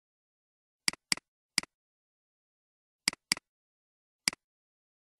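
Computer mouse button clicks: six short, sharp clicks, two of them in quick pairs, each a press followed at once by a fainter release.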